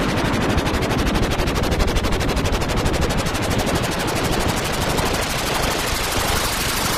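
Synthetic futuristic sound effect: a rapid, evenly spaced train of pulses like automatic gunfire over a dense, noisy rumble, such as a sci-fi rapid-fire weapon. The low rumble thins toward the end.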